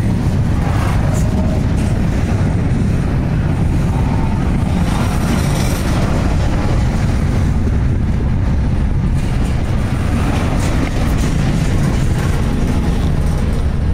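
BNSF intermodal freight train's double-stack well cars rolling past close by: a steady, loud rumble of steel wheels on rail.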